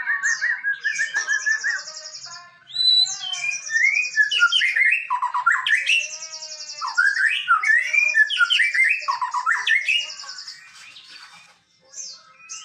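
Male white-rumped shama (murai batu) singing a varied song: fast high trills alternating with loud whistled and slurred phrases, with a short pause about two seconds in and a quieter spell near the end.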